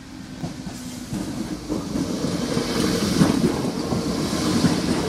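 DART electric commuter train passing close by, its wheels clattering over the track. It grows louder over the first two seconds, then runs on steadily with a rushing hiss.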